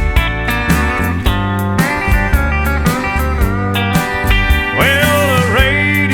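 Country music with steel guitar sliding over a band and a steady drum beat, with pitch bends near the end.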